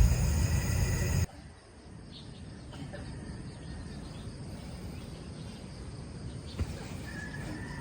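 Background music that cuts off abruptly about a second in, then quiet outdoor ambience with faint insect and bird chirps and a single click.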